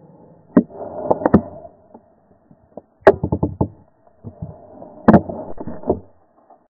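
Walking through tall dry grass: rustling with clusters of knocks and thumps, about half a second in, around one and three seconds in, and again around five seconds in.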